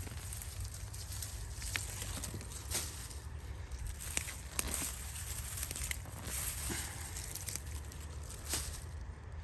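Dry garlic stalks and leaves rustling and crackling, with scattered sharp snaps, as hardneck garlic plants are pulled from the soil and handled, over a low steady rumble.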